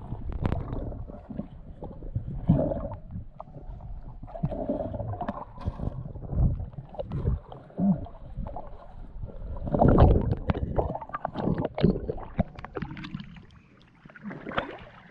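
Water sloshing and gurgling, with irregular knocks and bumps throughout; loudest about two-thirds of the way in.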